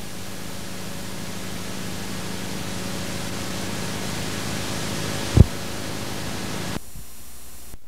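Steady hiss with a low hum from blank videotape playing after the recording ends. There is a sharp low pop about five seconds in, and the hiss and hum drop away suddenly near the end.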